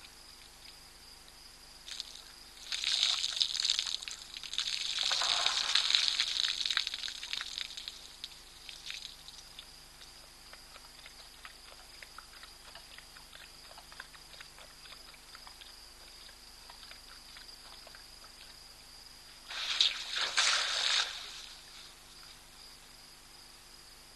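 An African elephant flinging water from its trunk: splashing and spattering water in two bouts, a longer one starting about two and a half seconds in and lasting some five seconds, and a shorter burst of a second or two near the end.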